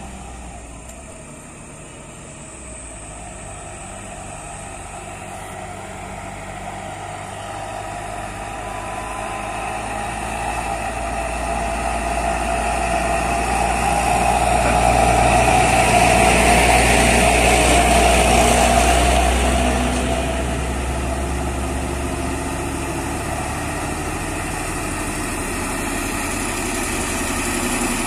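Heavily loaded diesel truck engine running under load as the truck climbs a steep grade slowly. The drone grows louder as the truck comes close and passes, peaking a little past halfway, then eases off while the engine of a following truck carries on up the hill.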